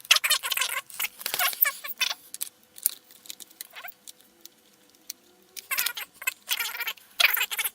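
Handling noise of hands working on an opened laptop: rapid scratchy rustling and small clicks, in two spells with a quiet stretch of about three seconds between.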